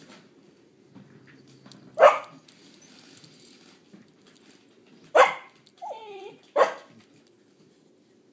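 Cocker spaniel puppy barking three short, sharp barks, the first about two seconds in and the last two close together near the end, with a brief falling whine between them.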